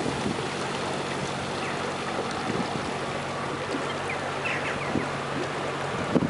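Motor boat's engine running steadily at slow cruising speed, a low even hum over the wash of water along the hull.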